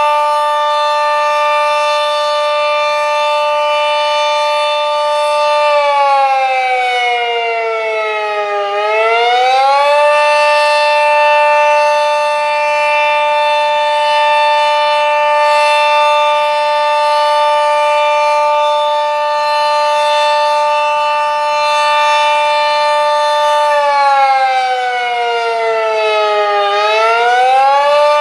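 Sentry 40V2T dual-tone outdoor warning siren sounding loud: a steady two-tone chord that twice winds down in pitch and then sweeps back up to full pitch.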